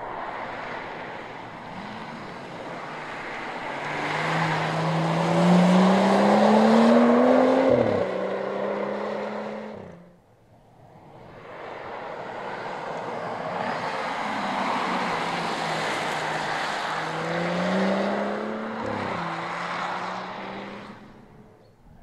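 BMW 435i Gran Coupé's turbocharged straight-six accelerating past twice. Each time the engine note rises, drops suddenly and holds lower for a moment, then fades away.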